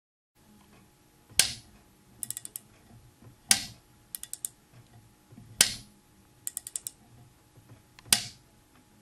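Tohnichi QSPCA slip-type click torque wrench clicking four times, about every two seconds, each sharp click marking that the set torque has been reached and its cam link is slipping so no further torque can be applied. Between the clicks come short quick runs of four or five light ticks.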